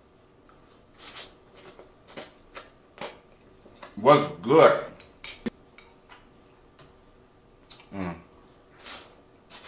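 Close-up mouth sounds of a person eating spicy instant noodles: slurping them off a fork and chewing, with many short wet smacks and clicks. Short vocal sounds break in about four seconds in and again near eight seconds.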